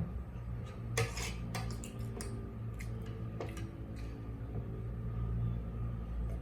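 Spoon and fork clinking and scraping on a plate during eating, a scattered series of sharp clicks bunched in the first four seconds, over a steady low hum.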